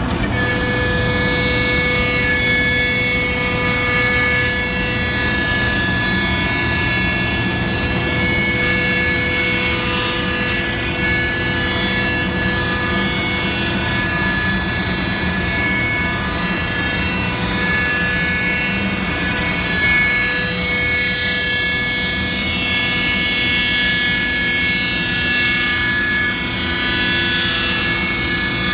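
1999 Thermwood Model 53 CNC router running, giving a loud, steady mechanical whine. Several steady tones drop out and come back during the run.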